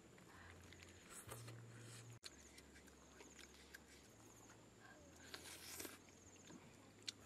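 Very quiet eating noises: faint soft clicks and rustles as a dog picks at fish scraps on a leaf-lined basket, then a short breathy puff about five seconds in as a spoonful of hot mushroom soup is blown on and eaten.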